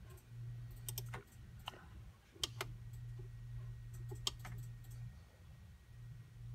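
Light, scattered clicks of a computer mouse and keys, coming in small clusters of two or three. A faint low hum runs underneath and drops out twice.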